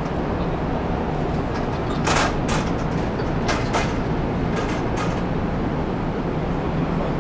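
Steady low hum of a parked Kintetsu train car's onboard equipment, heard from inside the car. A few brief, sharper noises come about two, three and a half, and five seconds in.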